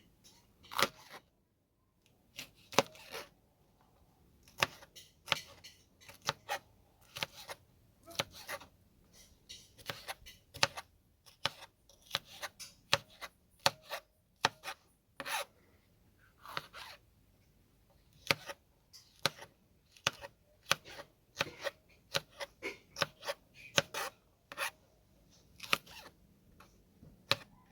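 Knife cutting sweet peppers: sharp, uneven chops and slicing clicks, roughly one or two a second, with short pauses between runs.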